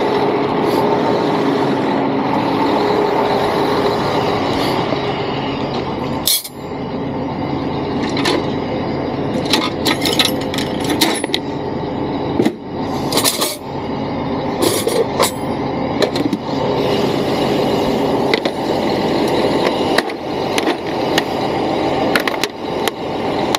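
Truck engine idling steadily while it airs up the air tanks. Over it, from about eight seconds in, come scattered knocks and clatters of wooden blocks, a power tool and small metal fittings being put away in a metal toolbox.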